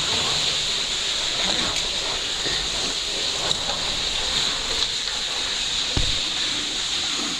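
Steady hiss of a cave waterfall, with one dull thump about six seconds in.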